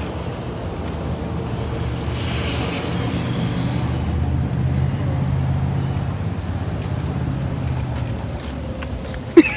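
A car engine running at a steady low idle, with a short hiss a couple of seconds in. A loud, sharp, pitched burst comes near the end.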